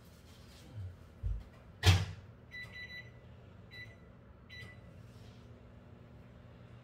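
Microwave oven being set: a couple of low thuds and a sharp clack as its door shuts, then three short keypad beeps, after which the oven starts running with a low steady hum.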